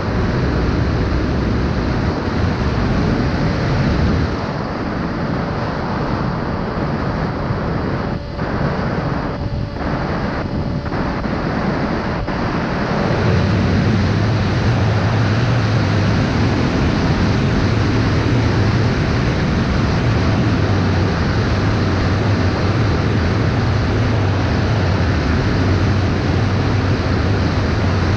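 Steady rush of wind noise on the camera microphone, with a low rumble that grows heavier about halfway through.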